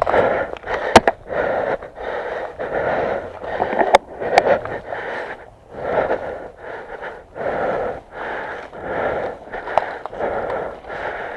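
Heavy, rhythmic panting of a player out of breath after a sprint, close to the microphone, with a few sharp clicks about a second in, near four seconds, and near the end.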